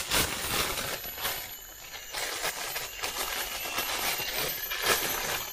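Thin black plastic bag crinkling and rustling as it is handled and worked open by hand, an irregular run of crackles.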